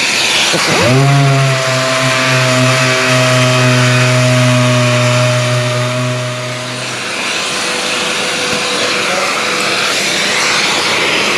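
Random-orbital sander with dust extraction, sanding a car door's paint back to bare metal so the dent puller's spot-welded pins can make a connection. The sander's whine rises as it spins up about a second in, runs steadily, and stops about seven seconds in, leaving a steady rush of air through the extractor.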